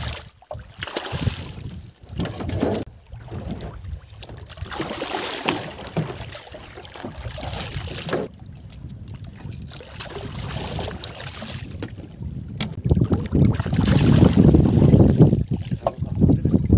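Water lapping and splashing against a small wooden boat, with wind rumbling on the microphone. The rumble grows heavier and louder in the last few seconds.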